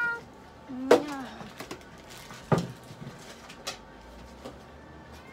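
Long-haired cat: the tail of a meow at the start, then a short low mew about a second in, along with a sharp knock. A second, louder knock comes about halfway through, then a fainter click.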